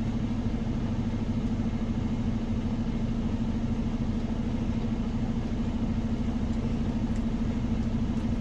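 Semi-truck diesel engine idling, heard from inside the cab: a steady, even low rumble.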